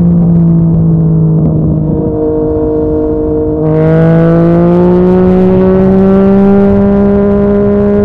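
Yamaha MT-09's three-cylinder engine through a Yoshimura R55 slip-on exhaust, running at a steady pitch that sags slightly. About three and a half seconds in, the throttle opens: the note gets suddenly louder and rougher and climbs slowly as the bike accelerates.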